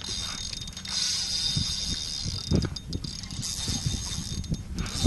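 The drag of a spinning reel buzzing as a hooked barracuda pulls line off, a high-pitched ratcheting whir that pauses briefly midway. Low knocks and rustles from rod handling sound underneath.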